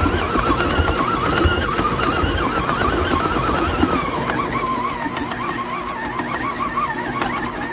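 Electric stand mixer running with a wavering high-pitched squeal over irregular low knocking as the unit shakes.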